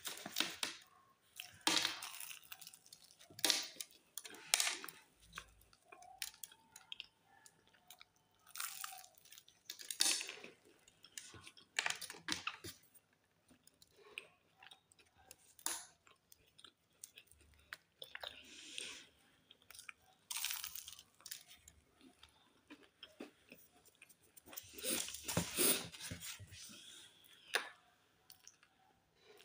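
A person biting into and chewing a flaky pastry, in irregular bursts of chewing with short pauses between.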